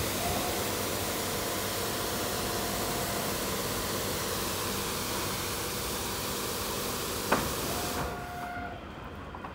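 High-pressure water spray from a WashTec rollover car-wash gantry hissing steadily onto a car, cutting off about eight seconds in. A single sharp click comes shortly before the spray stops.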